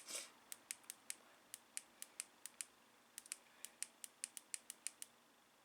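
A temperature button on a digital soldering iron's control being clicked repeatedly, about five clicks a second in two runs, to step the set temperature up.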